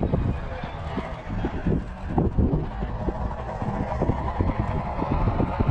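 Low, steady engine rumble with irregular wind gusts buffeting the microphone.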